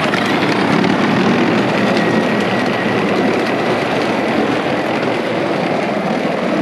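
Upgraded Power Wheels Dune Racer ride-on toy running at full speed: a loud, steady rush from its replacement electric drive motors and hard plastic wheels on the ground, with a faint thin whine in the middle.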